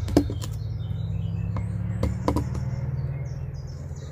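Small birds chirping over a steady low rumble, with a few sharp knocks: the loudest just after the start and two more around two seconds in.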